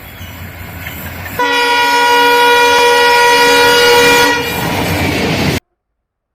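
A train approaching with a growing rumble, then its horn sounding loudly in one steady blast of about three seconds. The sound cuts off abruptly near the end.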